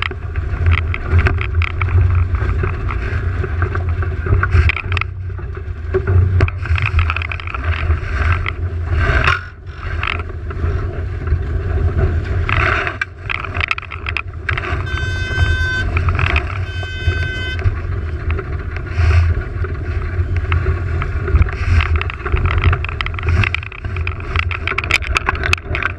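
Wind buffeting the microphone in a heavy, gusty rumble, with water rushing and splashing along the hull of a GP14 sailing dinghy under way. About halfway through come two short, high pitched tones about a second apart.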